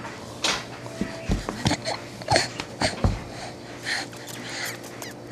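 Coiled-spring doorstop being flicked, giving a series of sharp twangs and knocks at irregular intervals, some with a brief low ringing.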